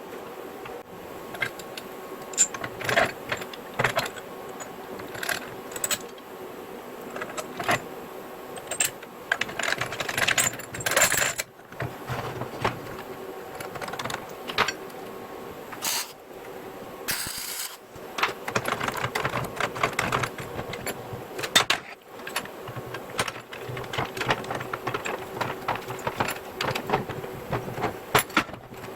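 Steel parts clinking and knocking against each other in irregular light strikes, over a faint steady hum. There is a short hissing burst about seventeen seconds in.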